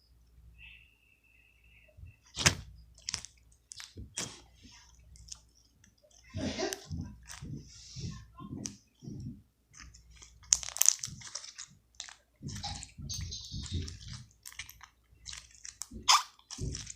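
Slime being squished, stretched and pressed by hand, giving irregular wet squelches with sharp clicks and pops.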